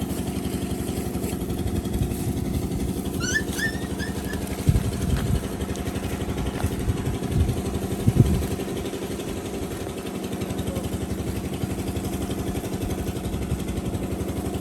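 A small engine idling steadily, with a few dull knocks in the middle and a brief run of high chirps a little over three seconds in.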